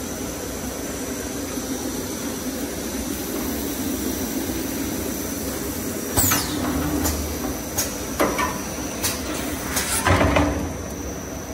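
Small spiral toilet-paper core making machine running steadily with a constant high whine, as the belt winds kraft paper strips onto the mandrel. From about halfway, a series of short sharp knocks and scrapes, the loudest and longest about ten seconds in.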